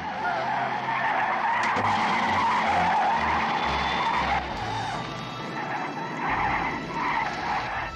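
Airliner's tyres screeching in a long skid as it brakes hard along the runway after touchdown.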